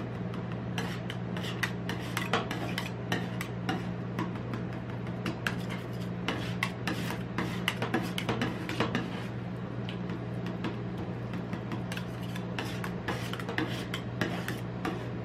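Two metal spatulas chopping and scraping freezing ice cream mix on the metal plate of a rolled-ice-cream cold pan: rapid, uneven clicks, taps and rasping scrapes of steel on steel, over a steady low hum.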